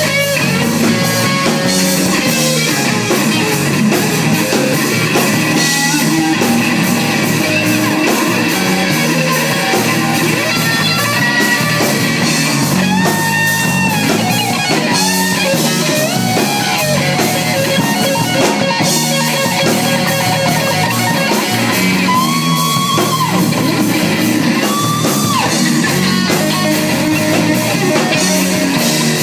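Live rock band playing loud: electric guitar, bass and drums. The electric guitar plays held notes that bend up and down in pitch over the rhythm section.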